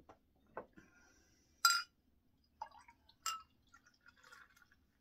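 Beer poured from a glass bottle into a pint glass, with two sharp ringing glass clinks, the louder about a second and a half in and the other about three seconds in, then a short soft pour near the end as the last of the bottle goes in.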